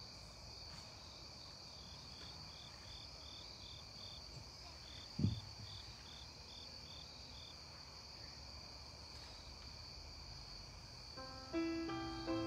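Crickets chirping steadily in the evening, one of them in a quick pulsed trill of about four chirps a second that stops a little past halfway. A single thump sounds about five seconds in, and near the end a piano starts playing a hymn introduction.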